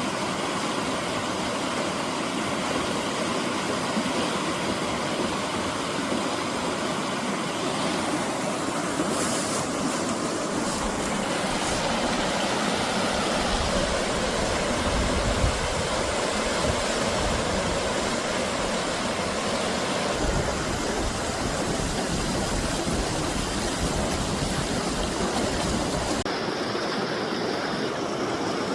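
Steady rush of high spring meltwater running in a swollen creek. The sound of the water shifts abruptly a few times.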